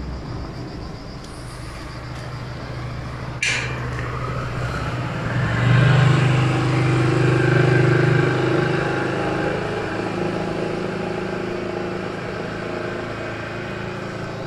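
A motor engine running steadily, louder for a few seconds around the middle and then easing off. There is one sharp click about three and a half seconds in.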